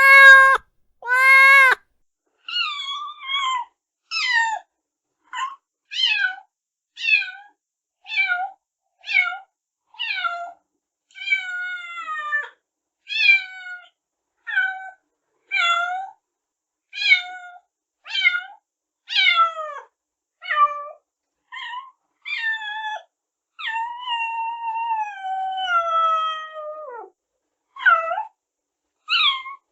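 Newborn kittens mewing: short, high-pitched cries about one a second, most falling in pitch. Two loud calls come at the start, and a few longer drawn-out cries come past the middle.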